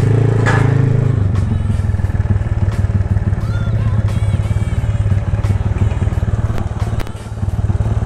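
Honda CB motorcycle engine running at low speed with a fast, even exhaust pulse, dipping briefly a little after seven seconds in.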